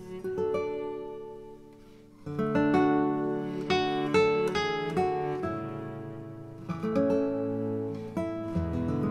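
Background music on acoustic guitar, plucked notes and strummed chords. It thins out and softens in the first two seconds, then comes in fuller.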